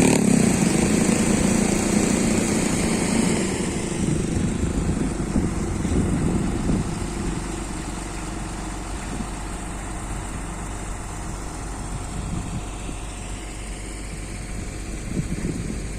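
Heavy diesel engine of earthmoving machinery running, loud at first and easing down over the first several seconds, then settling to a steady low hum.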